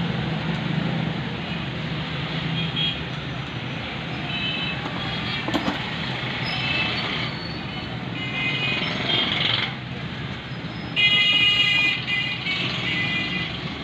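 Steady street traffic noise with vehicle horns sounding several times, the longest and loudest toot about eleven seconds in.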